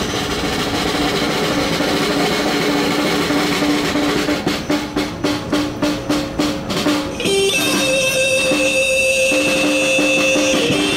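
Live electric guitar through a small amplifier and a snare drum: a guitar note repeats steadily, joined in the middle by about ten sharp snare strokes at roughly four a second. About seven seconds in the drum stops and the guitar holds long, high sustained notes.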